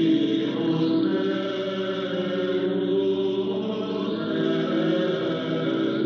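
Choir singing slow, sustained chant-like music, heard as a longwave AM radio broadcast received on a Yaesu FRG-8800 communications receiver.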